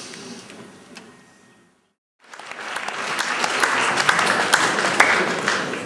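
Audience applauding in a large hall. The applause fades, cuts out completely for a moment about two seconds in, then comes back and holds steady.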